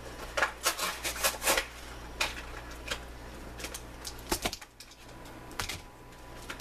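Plastic and cardboard packaging of a trading-card collection box being handled and pried open: irregular crackles and clicks in short clusters.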